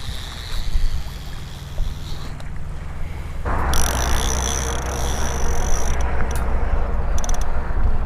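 Wind buffeting an open microphone: a steady low rumble with hiss that gets louder about three and a half seconds in. A high steady whine joins it then and breaks off several times near the end.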